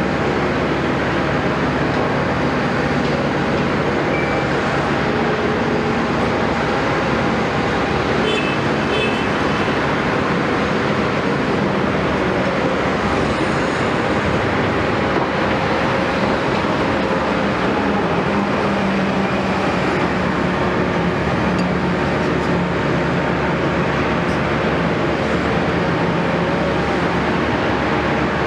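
Caterpillar 329E excavator's diesel engine running steadily under load, its note rising and falling a little as it works.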